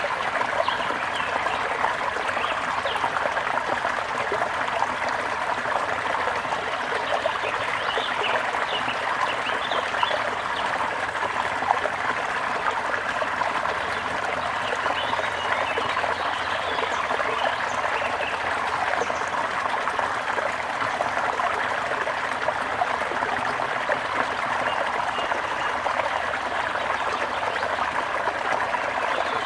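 Water trickling and burbling steadily over stones, like a small stream, with scattered faint bird chirps above it.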